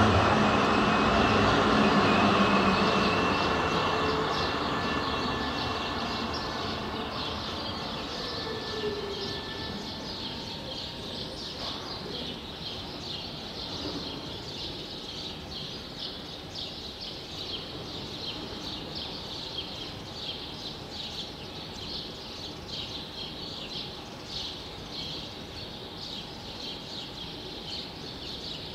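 A Zürich tram moving away on its rails, its running hum fading out over the first ten seconds or so. Then a quieter street background with steady high-pitched chirping.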